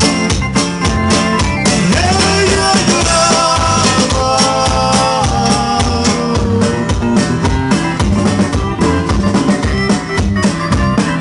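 A live band playing: a steady drum beat with guitars and bass, and a melody of long held notes in the middle.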